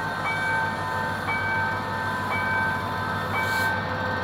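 Level-crossing warning signal sounding an electronic tone pattern that repeats about once a second, over the low steady running of a GM GT22CW-2 diesel-electric locomotive pulling a passenger train away. A brief hiss comes about three and a half seconds in.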